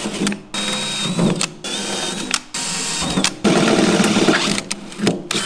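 Cordless drill boring through a steel tractor cab-roof panel, run in a series of short bursts, stopping and starting about every second, with a steady high whine in some of the runs.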